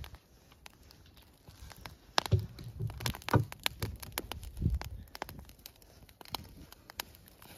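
Wood fire crackling in an open steel fire pit, with scattered sharp pops and snaps. A few heavier thumps come in a cluster a little over two seconds in and again near the middle.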